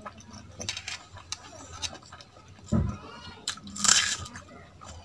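Close-up eating sounds: wet, sticky clicks of fingers mixing rice with kadhi on a steel plate, a dull thump near the middle, and a loud wet mouth sound as a handful of food goes into the mouth about four seconds in, followed by chewing.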